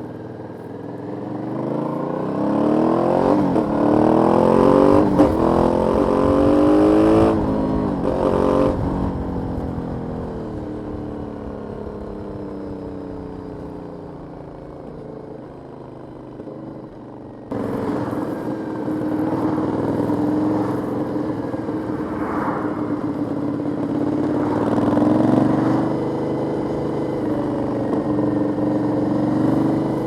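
Aprilia 900 V-twin motorcycle engine on stock exhaust under way: it accelerates hard through several gear changes, pitch climbing in steps, then the pitch falls away slowly as it rolls off. About two-thirds of the way in, the sound jumps abruptly to a steady running note with small rises in revs.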